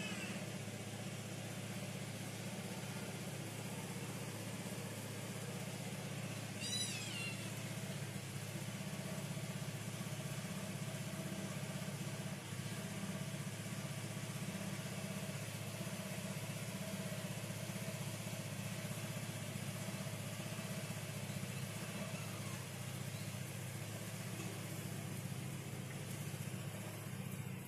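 A steady low mechanical hum, engine-like, runs throughout. A cat gives a single meow about seven seconds in.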